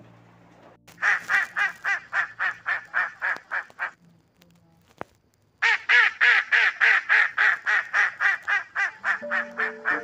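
Mallard ducks quacking in fast runs of about four to five quacks a second: a run of about three seconds, a short pause, then a second run of about four seconds.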